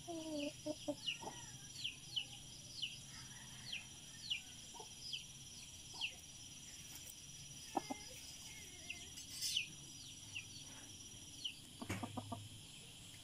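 Roosters clucking, with short low clucks near the start and a quick run of clucks near the end, over a steady series of short, high, falling chirps from another bird.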